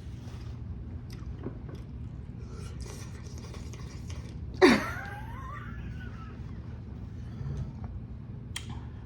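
Close-up eating sounds of hot ramen noodles: soft chewing and slurping, with one loud, sharp slurp about halfway through.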